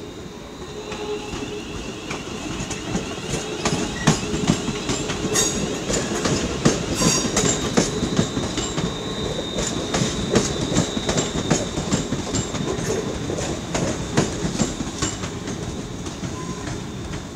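ScotRail electric multiple unit passing over the station pointwork: its wheels clatter and click over rail joints and crossings, with a thin high wheel squeal above the rumble. The sound swells over the first couple of seconds and stays loud.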